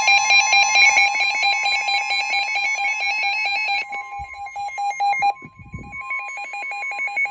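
Several NOAA weather radios alerting at once: the steady weather-radio warning alarm tone sounds under the receivers' own rapid, pulsing alarm beeps, signalling an incoming warning broadcast. Some of the beeping stops about four and five seconds in, leaving fewer radios beeping.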